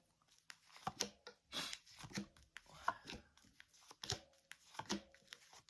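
A tarot card deck being shuffled and handled, with quick papery flicks, riffles and light taps of cards coming irregularly.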